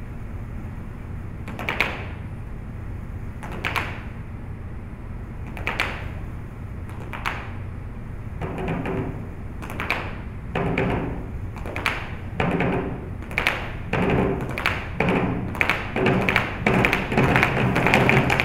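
Malambo percussion from whirled boleadoras and a bombo drum: single sharp strikes about every two seconds, then quicker clustered strikes from about eight seconds in that build into a fast, dense rhythm.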